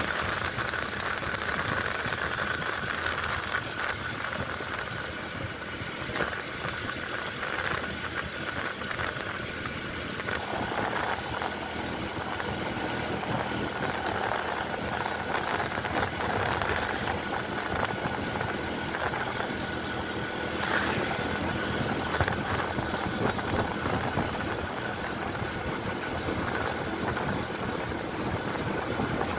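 Steady drone of a running motor vehicle, with a faint steady whine over it.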